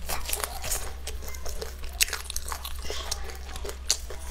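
Crispy fried chicken being bitten and chewed, the breaded coating crunching in many quick, irregular crackles.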